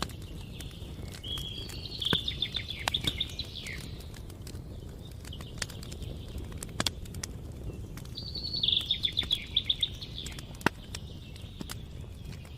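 A wood campfire crackling, with scattered sharp pops over a steady low rumble, while a small songbird sings a fast, rapidly repeated trilled phrase twice, about a second in and again near eight and a half seconds.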